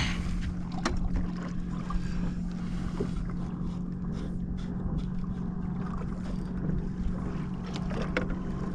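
Steady hum of a fishing boat's motor, with low wind rumble on the microphone and scattered small knocks and water sounds.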